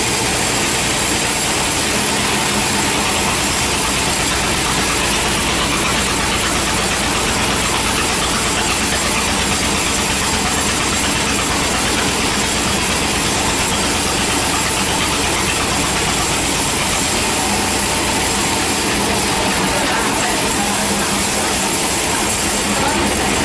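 Band sawmill blade cutting through a hard teak log, with the mill's motor running: a loud, steady grinding whine that holds unbroken throughout.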